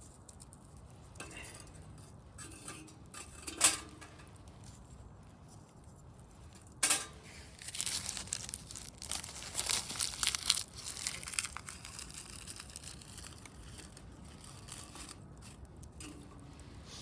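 Camp gear and tinder being handled at a small titanium wood stove: two sharp clacks a few seconds apart, then several seconds of crinkling and tearing.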